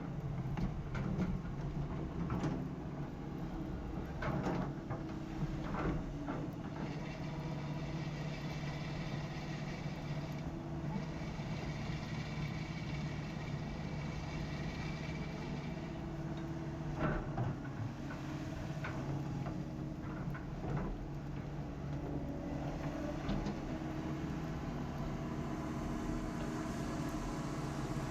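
Excavator's diesel engine running steadily, with a few short knocks and clanks at times.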